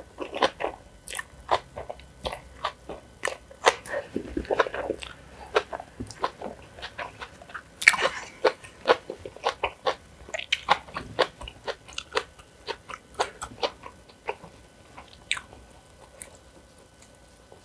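Close-miked biting and chewing of crunchy kimchi: a steady, irregular run of sharp, crisp crunches, with a louder bite about eight seconds in.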